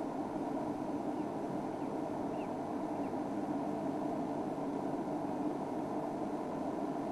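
Game-drive vehicle's engine running steadily, a low even rumble, with a few faint high chirps about one to three seconds in.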